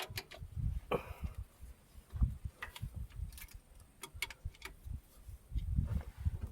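Scattered clicks and light knocks of hand tools and parts being handled during the injector change, a few every second, over irregular low thumps.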